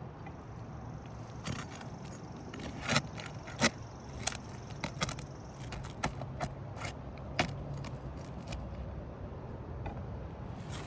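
Irregular sharp metal clicks and knocks with some scraping: a hammer and a roof snake working under asphalt shingles to break the tar strips and pull the nails. The two loudest knocks come about three and three and a half seconds in.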